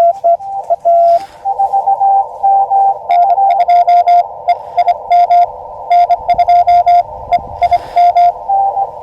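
Morse code (CW) from an Elecraft KX2 ham radio transceiver: keyed dits and dahs at two slightly different pitches, over the steady hiss of the receiver's narrow CW filter.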